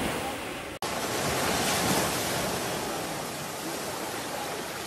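Small waves washing up on a sandy beach, a steady rush of surf, broken by a brief dropout just under a second in.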